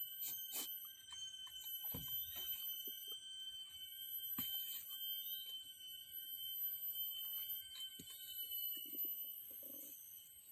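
A steady, high-pitched chorus of forest insects, several shrill tones held at once, with one of the lower ones stopping about eight seconds in. A few sharp clicks are heard, the clearest about four and a half seconds in.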